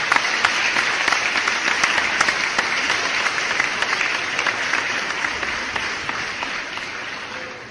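Applause from an audience, many hands clapping at once, dying down gradually toward the end.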